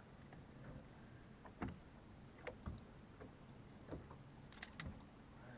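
Faint, scattered light knocks and clicks aboard a small fishing boat, about a dozen short ones spread irregularly, over a low steady hum.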